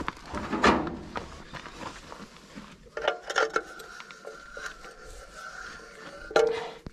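Metal clinks and scrapes of a wrench snugging up a bolt under a John Deere B tractor's oil pan, with a steady tone in the background from about three seconds in.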